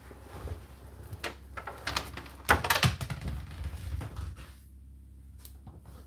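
Dried laundry being pulled out of a tumble dryer drum by hand: fabric rustling and scraping over the door rim, with a cluster of louder knocks and rustles about two and a half seconds in, then it goes quiet.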